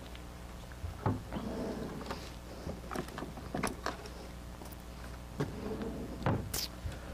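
Thin Bible pages rustling and being turned on a pulpit, picked up close by the pulpit microphone: two spells of soft paper rustling with a few light clicks, over a steady low electrical hum.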